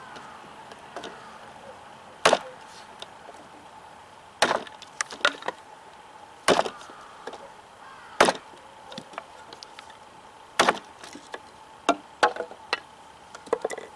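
A cKc Voyager large chopping knife striking thin wooden strips laid on a chopping block with light wrist chops: five sharp chops about two seconds apart, then several lighter knocks near the end.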